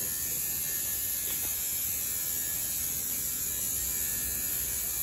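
A small electric motor buzzing steadily over a constant hiss, with no change in level.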